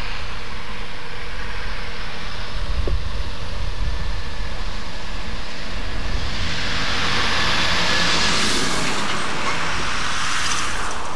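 A car driving past, its tyre hiss swelling from about six seconds in and fading near the end, over a low rumble.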